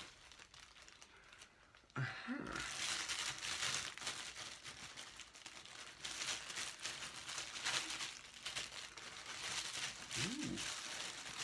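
Packaging crinkling and rustling as a mail-order box is unpacked by hand, starting abruptly about two seconds in.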